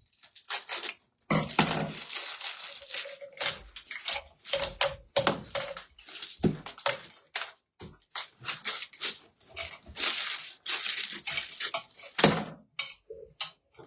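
Irregular knocks, clicks and rustling of parts being handled and fitted together while a floor-standing lamp is assembled.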